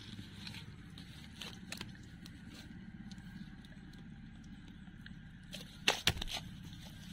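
Cast net mesh and a freshly caught carp being handled on grass: soft rustles and light clicks, with a couple of sharp knocks about six seconds in, over a steady low hum.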